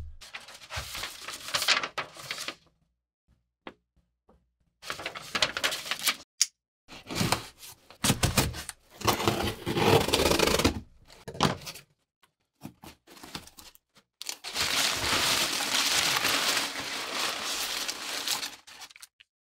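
A cardboard shipping box being opened: packing tape slit and torn off in several short bursts, then about four seconds of steady rustling and crinkling as crumpled kraft packing paper is pulled aside.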